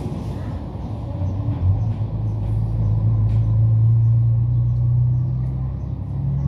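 A low engine drone swells over a couple of seconds and fades out near the end, over a steady low rumble.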